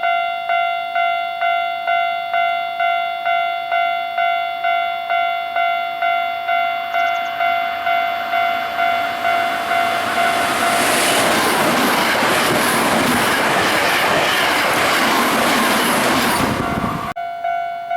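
Japanese railway level-crossing alarm ringing its electronic bell about twice a second. About ten seconds in, a train passes with a loud rush of wheel and rail noise over the bell, which cuts off suddenly near the end.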